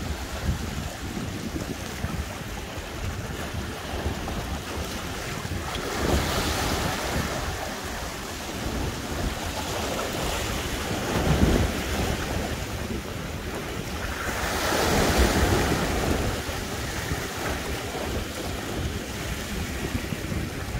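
Sea waves surging and breaking against rocks at the water's edge, with wind buffeting the microphone as a low rumble. The wash swells louder three times as bigger waves come in, about a third of the way in, halfway, and again near three-quarters.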